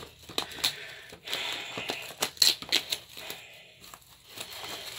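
Clear plastic shrink-wrap crinkling as it is handled, a string of irregular crackles.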